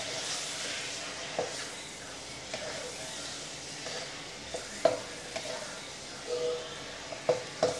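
Raw chicken wings sizzling in hot sesame oil with ginger and garlic in a nonstick wok, stirred with a spatula that knocks and scrapes against the pan several times, most sharply about five seconds in and near the end.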